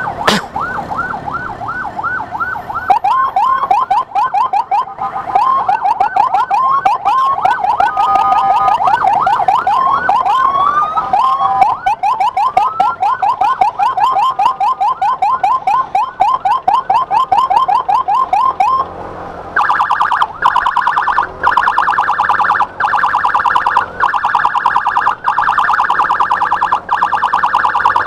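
Electronic emergency siren on a fast yelp, quick repeated rising wails, switching about two-thirds of the way through to a rapid pulsing tone. It is sounding to clear traffic for an ambulance escort.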